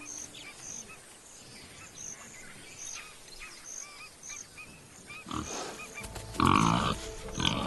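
Warthogs grunting: a couple of loud, rough grunts a little past the middle, the second the loudest, over faint repeated chirping.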